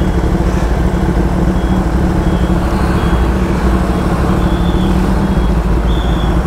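Kawasaki ZX-10R inline-four idling steadily in slow traffic, with a bus's engine running close by. A short, high electronic beep repeats a little faster than once a second.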